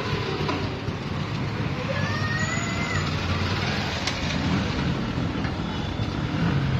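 Street traffic noise: a steady rumble of vehicle engines and road noise, with a brief higher-pitched tone about two seconds in.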